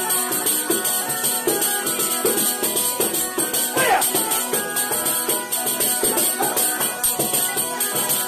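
Calabrian zampogna (bagpipe) and tamburello playing a tarantella. The bagpipe's drones hold steady under the chanter's melody, and the tambourine's jingles keep up a steady, rapid beat.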